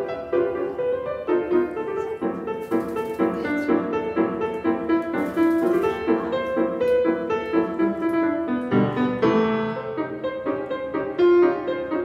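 Background piano music: a continuous, flowing run of notes.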